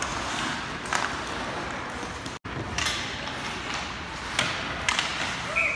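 Ice hockey rink ambience: a steady haze of skates and arena noise with several sharp clacks of puck against stick, pads or boards, and a brief dropout a little over two seconds in.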